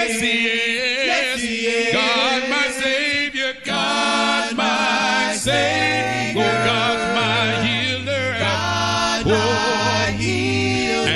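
Gospel vocal group singing a worship song in harmony, the voices wavering with vibrato. A low sustained bass part comes in about halfway through.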